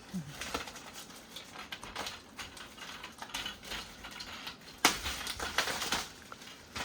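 Plastic bathroom shelf parts being handled: irregular clicks and rustling, with one sharp knock about five seconds in followed by a short run of clattering.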